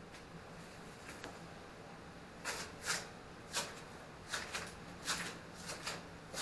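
A string of short scuffing sounds, roughly one every half second to second, starting about two and a half seconds in, over a faint low hum.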